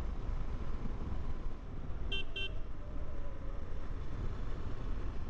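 Two quick toots of a vehicle horn about two seconds in, over steady low road and wind rumble.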